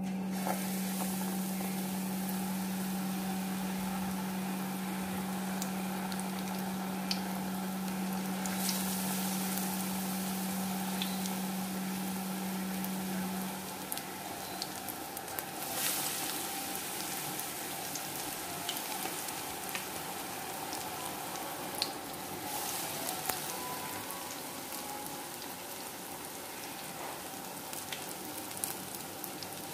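Batter-coated green chillies (chilli bhajis) deep-frying in hot oil in a stainless steel kadai: a steady sizzling hiss with small pops, surging briefly a few times as more pieces go in. A steady low hum runs under it for the first half, then stops.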